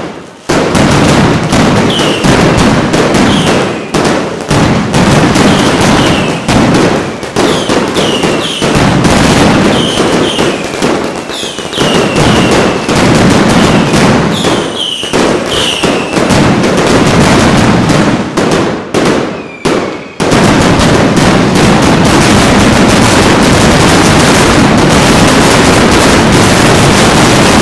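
Mascletà pyrotechnics: dense strings of ground-level firecrackers cracking in rapid succession, with many short falling whistles from whistling fireworks through the first part. After a brief lull about two-thirds in, the bangs merge into one continuous, very loud barrage, the terremoto that closes a mascletà.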